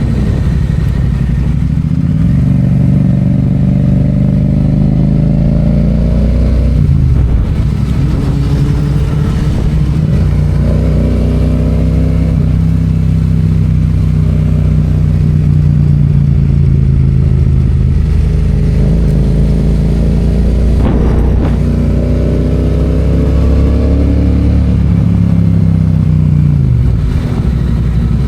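Yamaha FZ-07's 689 cc parallel-twin engine under way, climbing in pitch as it accelerates and dropping off sharply when the throttle is rolled off, once about seven seconds in and again near the end, with a long steady stretch of cruising in between.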